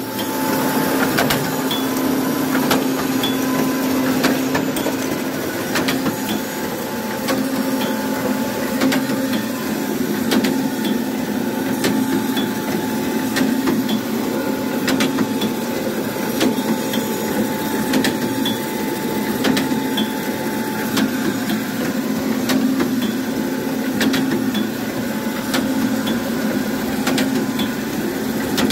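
Freshly overhauled Baader 187 fish filleting machine running while filleting fish: a steady mechanical hum with sharp knocks and clacks from its mechanism every second or two.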